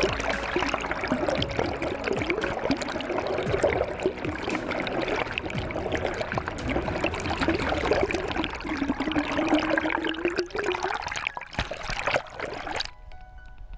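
Seawater rushing and gurgling around an underwater camera, a steady wash with bubbling; it cuts off suddenly near the end.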